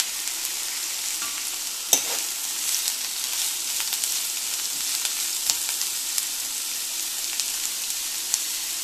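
Chopped onions, garlic and green chillies sizzling in hot oil in a wok-style kadai, with a metal spoon scraping and knocking against the pan as they are stirred. The loudest knock comes about two seconds in.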